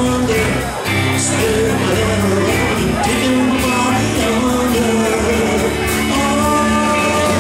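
Live rock and roll band playing: electric guitars, bass guitar and drums, with a man singing lead.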